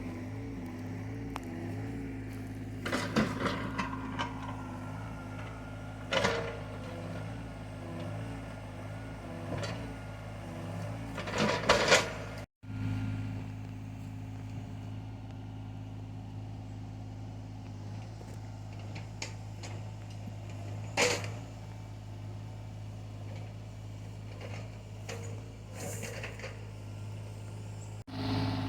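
Excavator's diesel engine running steadily with a low drone, with several sharp clanks and knocks from the machine at work.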